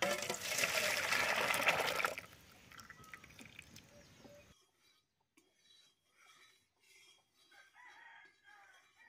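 Hot boiled masoor dal poured from an iron wok into a steel bowl, a loud splashing pour that stops after about two seconds. Faint chicken clucking follows.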